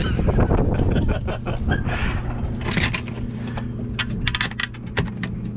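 Handling noises: a run of short sharp clicks, taps and scrapes, with a quick flurry of clicks about four seconds in, over a steady low hum.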